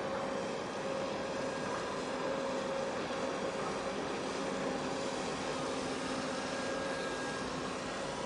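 Steady drone of a large container ship's machinery as it passes close by: an even mechanical rumble with a faint constant hum over it.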